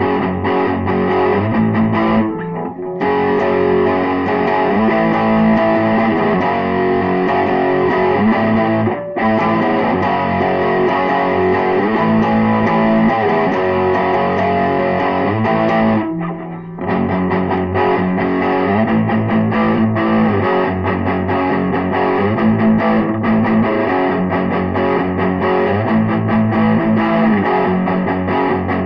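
Instrumental rock on distorted electric guitar, a steady run of riffs that stops briefly three times and picks up again each time.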